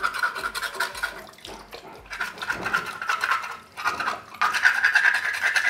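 A mussel shell being scraped and scrubbed rapidly under a running tap, in three spells of fast rasping strokes, as grit and impurities are cleaned off it.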